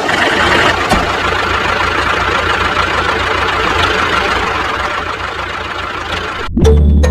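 A small motor running steadily with a dense mechanical noise, which cuts off abruptly about six and a half seconds in as electronic music starts.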